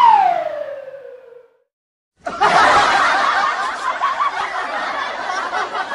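A pitched whistle-like tone glides downward and fades away over the first second and a half. After a short dead silence, laughter starts abruptly at about two seconds in and carries on, an edited-in laughter sound effect.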